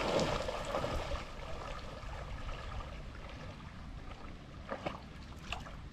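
Water splashing, loudest in the first second, then settling into a quieter, steady trickling wash.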